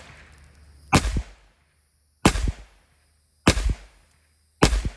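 Springfield Armory 1911 pistol in .45 ACP firing 230-grain full metal jacket rounds at a gun safe. Four single shots go off, about one every 1.2 seconds, each with a short ringing echo.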